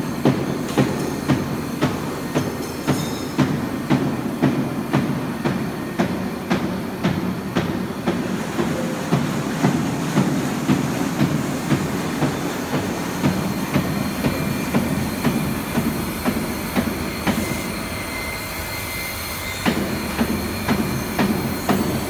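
CNC foam cutting machine running, with a steady low mechanical noise and a regular clatter about two to three times a second.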